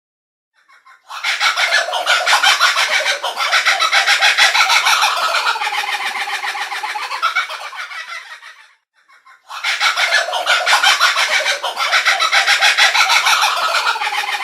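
Domestic fowl clucking in a dense, rapidly pulsing run of calls for about seven and a half seconds, then after a short gap the same stretch starts again.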